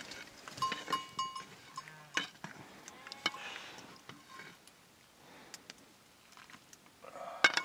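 Metal ringing and clinking: several short bell-like rings in the first second or so, with scattered sharp knocks and a loud knock near the end.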